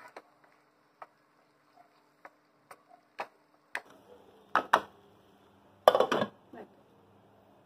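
Spice masala paste frying in oil on low heat in a kadai under a lid, popping and sputtering in scattered sharp ticks as the oil begins to separate from the masala. Two louder clicks about four and a half seconds in and a short clatter of utensils around six seconds.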